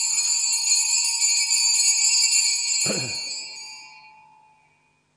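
Altar bells (sanctus bells) ringing continuously at the elevation of the chalice after the consecration. The ringing stops with a dull thump about three seconds in and rings away over the next second or so.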